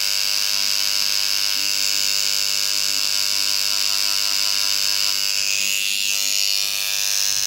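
Small handheld electric engraver running with a steady high-pitched buzz as its point works a portrait into polished black granite; the whine wavers briefly about six seconds in.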